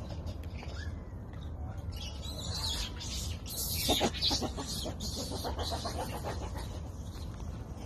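Short animal calls: a quick run of pulsed calls about four seconds in and another from about five to six seconds, with faint gliding calls earlier, over bursts of rustling.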